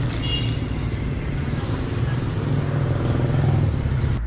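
Road traffic: a steady rumble of passing vehicles that swells about three seconds in, then cuts off suddenly near the end.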